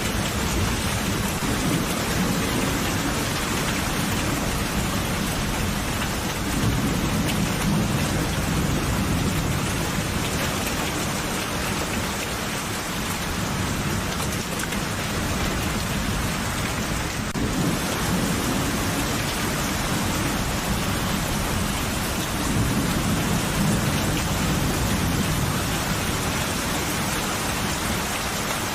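Steady heavy rain with low, rolling thunder rumbles that swell twice, about a quarter of the way in and again near the end.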